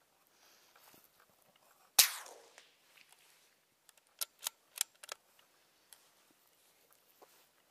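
A single shot from a CZ 452 bolt-action .22LR rimfire rifle about two seconds in, the crack trailing off over about half a second. About two seconds later comes a quick run of four or five sharp clicks.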